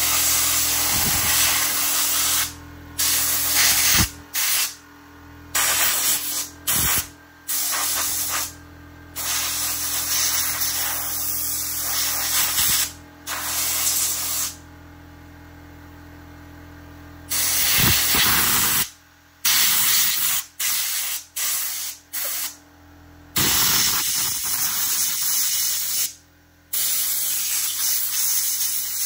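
Compressed air from an air-compressor blow gun hissing in repeated bursts, some brief and some several seconds long, as it blows dirt and debris out of a chainsaw. There is a pause of about three seconds midway.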